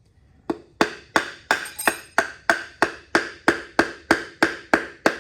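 Steady, rapid hammering, about three blows a second: a rubber mallet striking a piece of firewood held against a piston to drive the piston and connecting rod out of an LS1 V8's cylinder bore.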